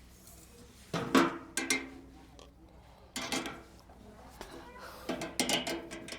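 Metal knocks and clanks, each with a short ring, in four groups one to two seconds apart: a sheet-metal satellite dish being handled and worked to straighten its bent shape.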